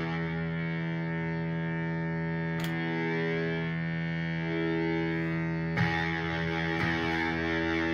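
Electric guitar chord through a NativeAudio Fry Bread fuzz pedal, held and sustaining with a thick distorted tone, then struck again about six seconds in.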